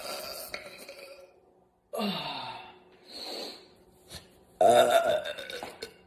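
A woman belching several times in a row. A belch dies away in the first second, a short belch about two seconds in drops in pitch, a fainter one follows, and a longer, louder belch comes about a second and a half before the end.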